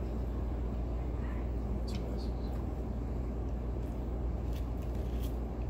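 Steady low rumbling background noise with a few faint clicks and taps.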